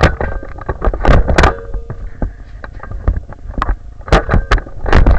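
Handling noise from a camera mounted on a toy Nerf blaster being moved about: irregular loud knocks and plastic clatter with rubbing between them.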